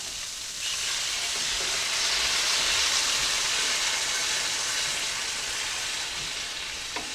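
Beef broth poured into a hot skillet of browned vegetables, sizzling and hissing as it hits the pan. The sizzle swells about a second in and eases off toward the end.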